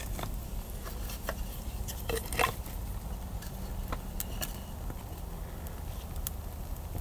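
Small campfire of dry sticks crackling with scattered sharp pops and twig snaps as sticks are laid on it; the loudest is a short cluster of snaps and knocks about two seconds in. A steady low rumble lies underneath.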